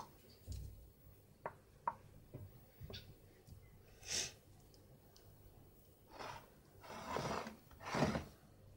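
A spatula smoothing cake batter in a glass baking dish: a few light clicks against the glass early on, then several short soft scraping swishes, the loudest near the end.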